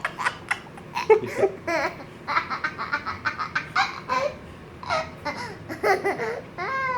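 Toddler giggling in repeated short bursts of laughter. Near the end a long, wavering voiced sound begins.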